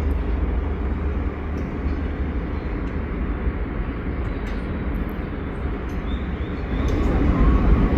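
Steady low rumble of a moving vehicle, growing a little louder near the end.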